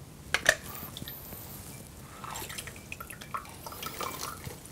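Green hinged handheld lemon squeezer pressing a lemon half over a glass jar of olive oil: a couple of sharp clicks about half a second in, then lemon juice dripping and trickling into the jar through the rest.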